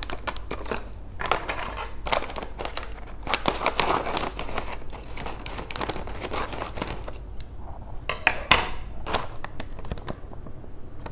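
Stiff plastic food pouch crinkling and crackling as it is handled and cut open across the top with scissors, then a few separate sharp snips or clicks near the end.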